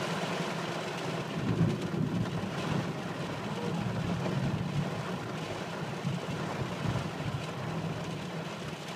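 Heavy rain falling on a car's roof and windshield, heard from inside the cabin as a steady wash of noise with a constant low rumble underneath.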